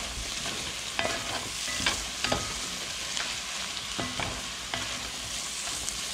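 Chopped onions, bell pepper and celery sizzling in a metal pot as a wooden spatula stirs them, with a few scrapes and knocks of the spatula against the pot.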